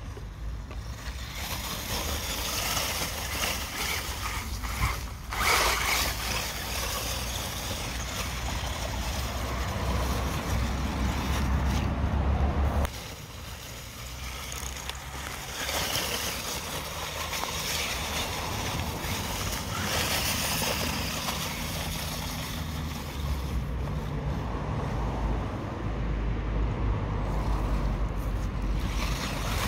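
Wind buffeting the microphone over a steady rustle of dry fallen leaves as a WLToys RC buggy drives through the leaf litter, with a louder gust about five seconds in and a brief quieter stretch near the middle.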